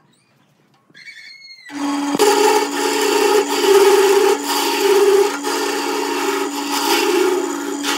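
Wood lathe starting up about two seconds in, its motor humming steadily, then a flat chisel scraping and cutting the spinning segmented-wood vase in several uneven passes.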